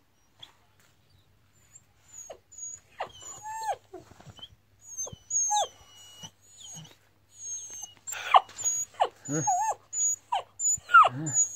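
Kangal puppies whining and yelping: a few short, wavering calls at first, then a thick run of louder yelps from about eight seconds in, some dropping steeply in pitch.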